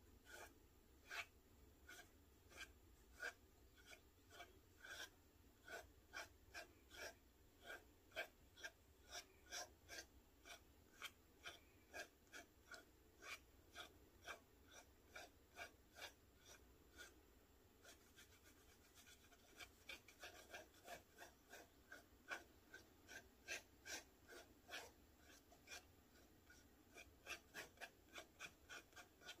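A fountain pen nib scratching faintly across paper in short, quick strokes, about one to two a second and more frequent in the second half, as it pulls lines of wet ink outward.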